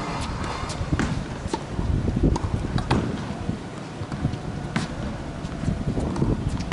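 Tennis balls bouncing on a hard court and sharp knocks of balls struck with rackets, several scattered over a few seconds above a low outdoor rumble.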